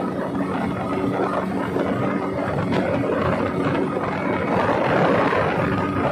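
Speedboat engine running steadily at speed, with the rush of water and wind over the open boat.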